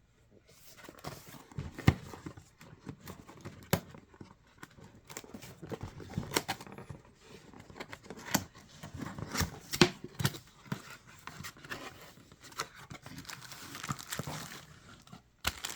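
Packaging of an electric salt and pepper grinder set being opened and handled: irregular tearing and crinkling, with many sharp clicks and knocks scattered throughout.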